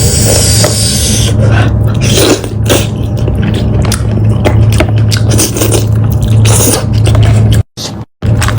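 Close-miked eating sounds: lamb meat being chewed and bitten, with wet scraping and crackling clicks, over a steady low hum. The sound cuts out briefly near the end.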